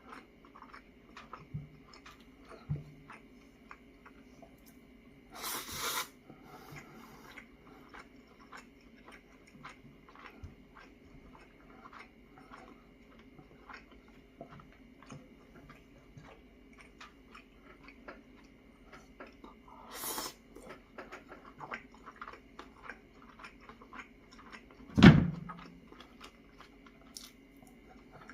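Close-up chewing and small mouth clicks of someone eating donggeurangttaeng, pan-fried Korean meat patties. Two brief rushes of noise come through, and near the end there is a single loud thump.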